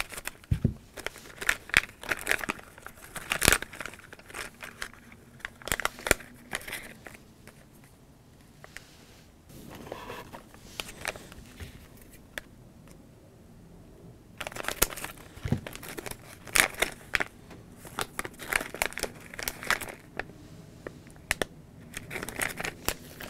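Plastic foil blind-bag packet of Lego minifigures being cut open with scissors and pulled open by hand, crinkling in bursts of sharp crackles. There is a quieter spell about halfway through, then steady crinkling again.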